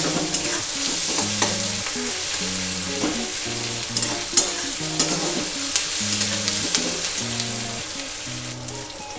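Sliced onions sizzling in hot oil in a metal kadai, stirred with a metal spatula that scrapes and clinks against the pan now and then.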